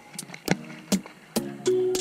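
Background music with a steady beat of about two strokes a second under short pitched instrumental notes.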